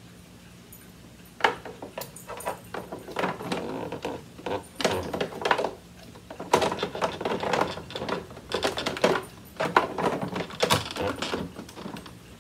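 Rapid, irregular plastic clicks, knocks and rustling as the HEPA filter and parts of a Riccar Pizzazz canister vacuum are handled and fitted back into the housing, starting about a second and a half in.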